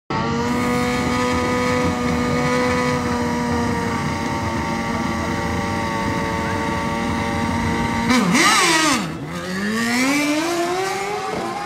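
Superbike engine held at a steady pitch for about eight seconds. Then the revs wobble and dip, and climb steadily again, a little quieter.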